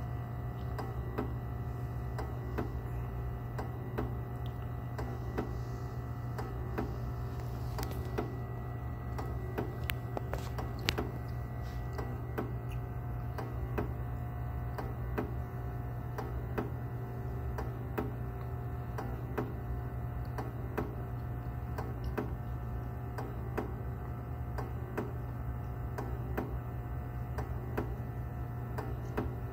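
Bunn commercial coffee brewer ticking with an even, regular click over a steady low hum.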